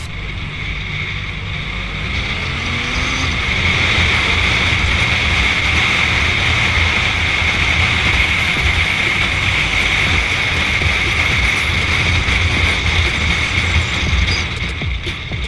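Wind rushing over the motorcycle rider's helmet-camera microphone at road speed, with the motorcycle's engine running as a low rumble beneath. It grows louder about three seconds in as the bike picks up speed.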